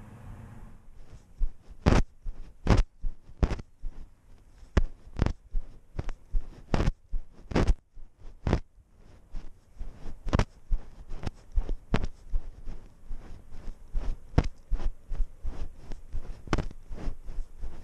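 Irregular knocks and thumps from a GoPro camera worn on a cat's chest, jolting as the cat moves, about one to three a second.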